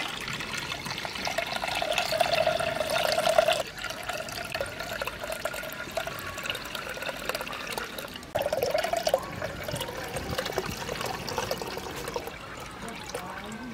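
Milk poured in a steady stream from an aluminium mug through a metal tea strainer into a terracotta pot, splashing into the milk already in the pot. The pour eases about three and a half seconds in and grows louder again a little past eight seconds.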